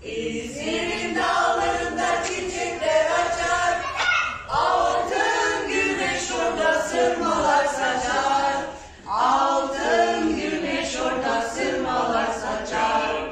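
Several voices singing together, echoing under a domed stone chamber. There is a short pause about two-thirds of the way through before the singing resumes.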